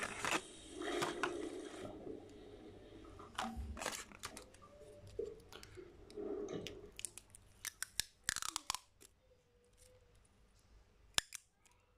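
Plastic packaging crinkling and crackling as it is handled: clear plastic bags and a plastic blister pack of crystal tape, with scattered sharp clicks and taps that thin out towards the end.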